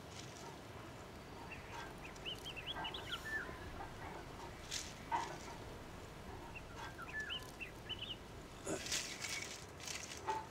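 Chickens clucking, with short high chirps in two clusters and a few brief scuffs or rustles, the last of them bunched near the end.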